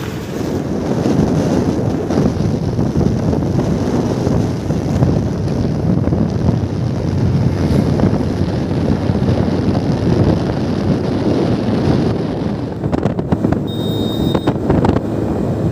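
Wind buffeting the microphone of a moving scooter as a steady low rumble, with the scooter's engine and tyre noise underneath.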